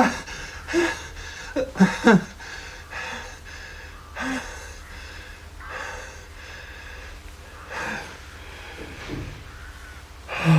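A man gasping and breathing hard, with a few short voiced gasps in the first two seconds, then a string of heavy breaths every second or so: panting on waking from a nightmare in a sweat.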